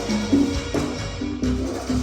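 A band playing Latin-style dance music during a sound check: a repeating bass line under busy percussion.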